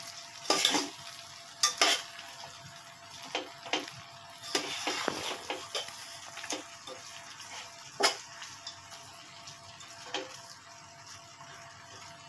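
A metal spoon stirring biryani rice in an aluminium pot, knocking and scraping against the pot's sides and bottom every second or two.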